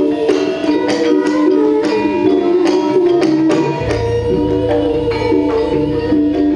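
Live campursari music from a Javanese gamelan ensemble, with regular kendang drum strokes over steady metallophone tones. A low bass comes in about four seconds in.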